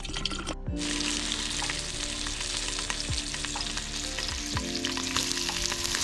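Water pouring into an electric kettle for a moment. Then, from just under a second in, hot dogs sizzle in a frying pan on an electric hot plate with a steady, dense hiss.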